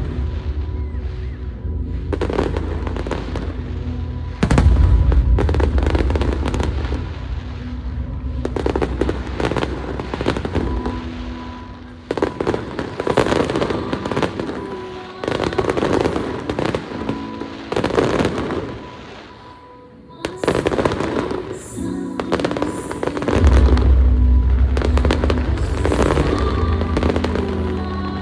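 Aerial fireworks bursting and crackling in rapid succession over loud show music with deep bass. The bursts and music thin out briefly about two-thirds of the way through, then build again.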